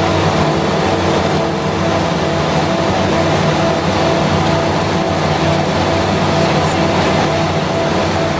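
Twin turboprop engines and propellers of a BAe Jetstream 31, heard from inside the cabin, running as a steady drone with several held tones.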